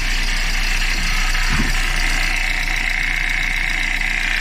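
Renault Laguna 3 engine idling with a constant knock from the air-conditioning compressor: a mounting bolt has come out, so the compressor knocks against the engine.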